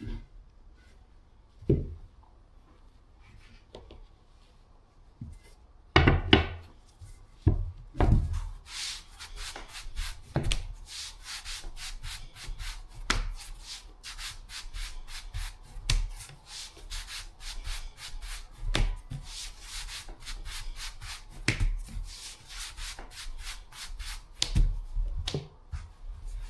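Rolling pin rolling out dumpling wrappers on a board: quick, rhythmic back-and-forth rubbing strokes that start about eight seconds in, after a few separate knocks.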